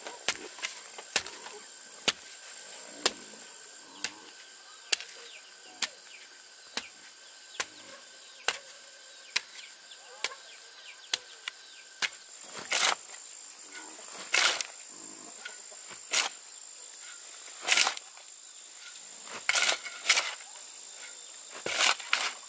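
Sharp knocks of a tool on wood, evenly about once a second, then from about halfway heavier, longer strikes every second or two.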